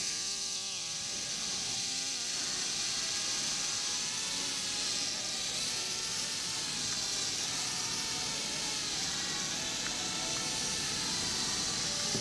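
FQ777 FQ17W mini quadcopter's motors and propellers buzzing in a steady high whine as it hovers. The pitch wavers slightly as a finger pushes it around.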